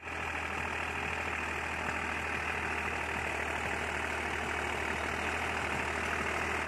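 Deutz-Fahr Agromaxx 50 hp tractor's 3000 cc diesel engine running steadily while it pulls a rotavator through a field, with a low even hum.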